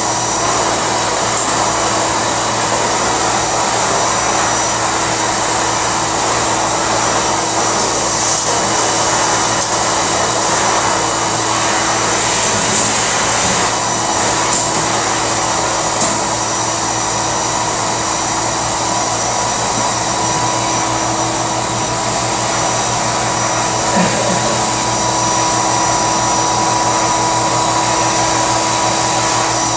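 Drum-style canister vacuum cleaner running steadily, its motor drawing air through the hose with a constant whine, with a couple of small knocks as the nozzle is moved about.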